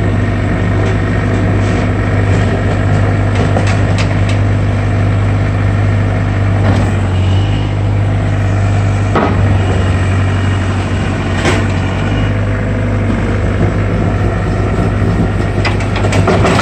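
Caterpillar 305 mini excavator's diesel engine running steadily while the machine swings and works its boom, with a few short knocks from the machine.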